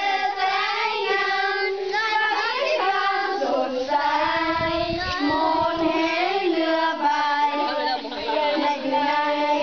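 Children singing in high voices, holding and sliding between notes without a break.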